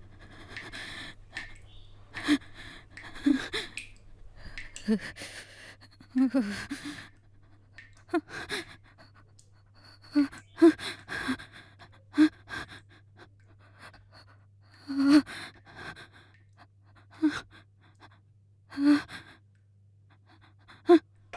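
A woman gasping and panting in distress, in sharp, uneven breaths every second or two that grow louder in the second half.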